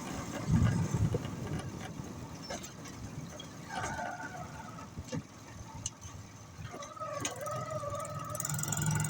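Motor rickshaw running along a road, its engine rumble and road noise heaviest in the first second and then easing. A faint wavering tone comes in over the second half.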